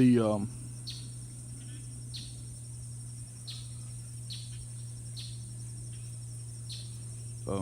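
Outdoor insect chorus, a steady high buzzing of crickets or cicadas, with a bird repeating a short falling chirp about once a second over a steady low hum.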